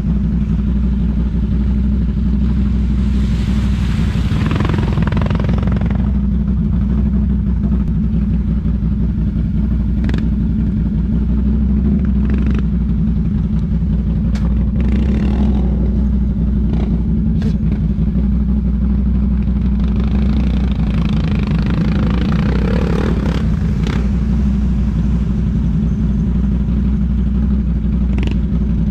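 ATV engine idling steadily close by while other ATVs run through a mud pit, their engines swelling louder about four seconds in and again around twenty seconds in, with a few sharp knocks.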